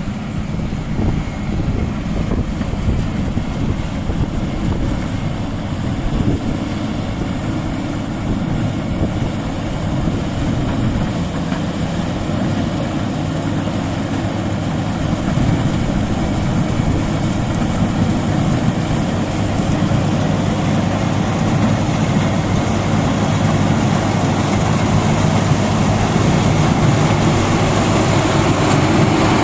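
Combine harvester running steadily, a continuous engine rumble with the noise of its machinery, growing gradually louder toward the end.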